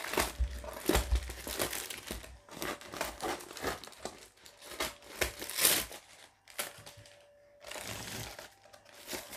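A parcel's packaging crinkling and crackling in the hands as it is being opened, in irregular bursts with a short lull about seven seconds in.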